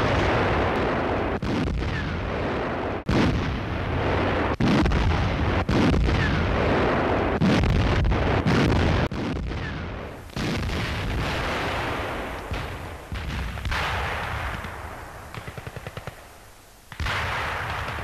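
Artillery fire: repeated heavy gun reports, each with a sudden onset trailing off into rumble, mixed with gunfire. A quick run of rapid, evenly spaced shots comes about three-quarters of the way through, like a machine-gun burst.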